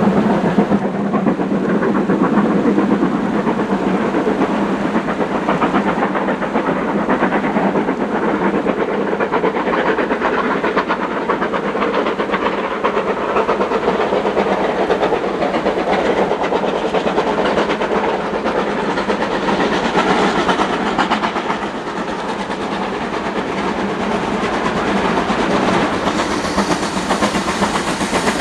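Steam locomotive approaching while working hard, its exhaust heard as a steady, rapid chuffing with hiss.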